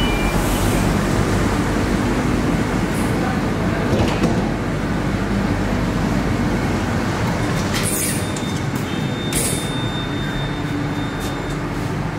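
Steady low rumble and hum of an electric passenger train standing at the platform. Over it the stainless-steel lift doors slide open, with a click about four seconds in and two short hisses later on. A thin steady tone sounds for a few seconds, starting about two-thirds of the way in.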